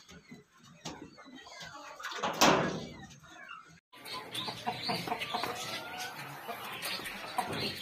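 A flock of chickens clucking together without pause, starting abruptly about halfway through. Before that, only sparse faint sounds and one loud, brief burst of noise about two and a half seconds in.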